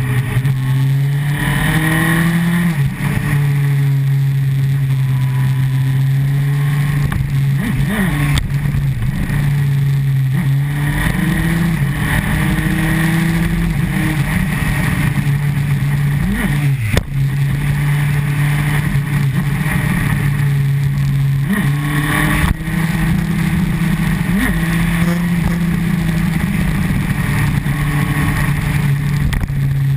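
Honda CBR954RR Fireblade's inline-four engine running under way on the move. Its note holds steady, then dips and climbs again several times as the rider works the throttle and gears.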